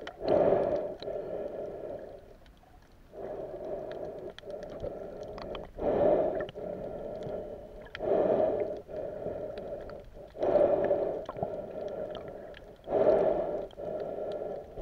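A snorkeler breathing through a snorkel, heard through the camera held underwater: a loud, hollow, tone-like rush of breath every two to three seconds, with quieter breathing between.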